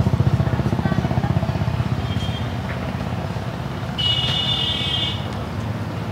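A motorcycle engine running with a fast pulsing beat that fades away over the first few seconds. About four seconds in, a high-pitched tone sounds for about a second.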